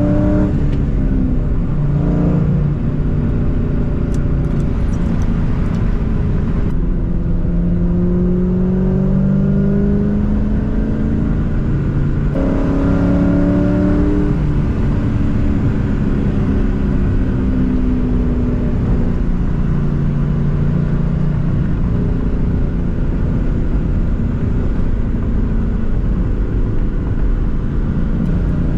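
2004 Ford Mustang GT's 4.6-litre V8, run through an off-road X-pipe and Borla S-Type mufflers, pulling through the gears while driving. The engine pitch climbs and drops back several times as it shifts.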